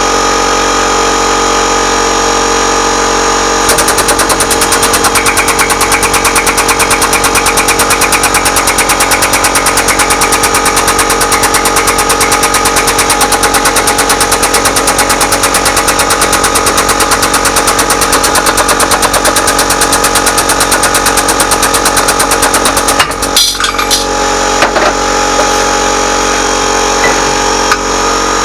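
Workshop machinery running with a steady hum. About four seconds in, a fast, even hammering of many strokes a second starts on top and runs until it stops about 23 seconds in, followed by a few scattered clanks.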